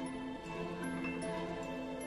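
Background film score of slow, sustained notes.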